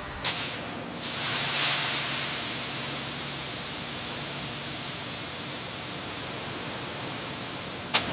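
Laser cutting head cutting sheet metal with a steady hiss. There are three sharp hissing surges in the first two seconds and a short sharp burst near the end.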